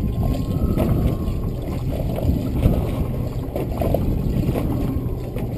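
Wind on the microphone and water lapping against a small boat's hull, a steady low rumble with small irregular splashes.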